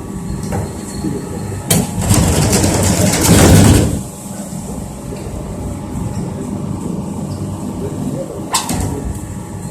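Drive mechanism of a rotary drum dryer running with a steady low mechanical hum. A louder rushing, grinding stretch comes about two to four seconds in, and sharp knocks sound near the two-second mark and again near the end.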